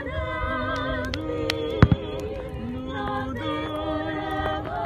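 A voice singing a slow song in long held notes with a wavering vibrato, over aerial fireworks shells bursting, with scattered pops and two loud bangs close together about two seconds in.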